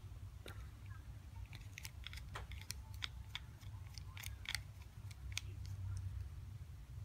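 A small screwdriver working a tiny screw out of a Shimano Calais baitcasting reel: a run of light, irregular clicks and scrapes of metal on metal.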